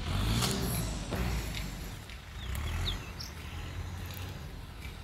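Outdoor roadside background: a steady low rumble with a few short bird chirps about two and a half to three seconds in.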